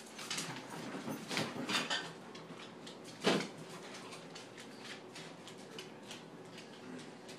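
Refrigerator door being pulled open by a dog tugging a cord tied to its handle: a few soft knocks and scuffs, then a sharp thud about three seconds in as the door seal lets go and the door swings open. Quieter light clicks and clatter follow.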